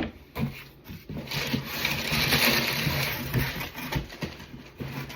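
Cardboard box and packaging being handled: a few knocks, then a sustained rustling, scraping stretch lasting about two seconds, then scattered light knocks as the keyboard box is moved.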